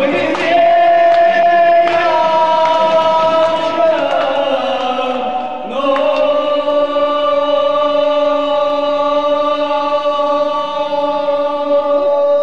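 A group of men singing together into a karaoke microphone in drawn-out held notes; the last note is held unbroken through the second half.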